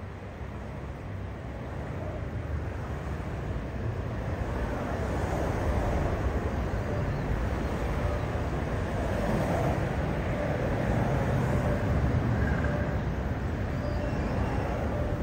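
Steady road traffic rumble of motorcycles and cars moving across a railway level crossing, building up over the first few seconds and then holding.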